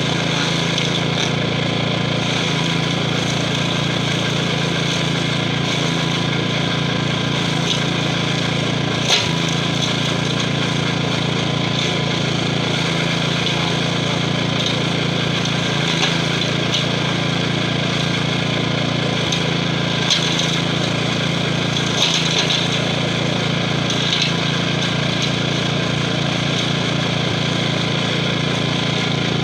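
Gravely 5640's 12 hp Kohler engine running steadily under load as its stump-grinder wheel chews into a tree stump, with a handful of sharp knocks scattered through.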